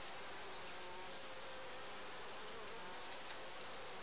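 Honeybees buzzing over an open hive as its brood frames are inspected: a steady hum of many bees, with single bees' tones drifting up and down in pitch.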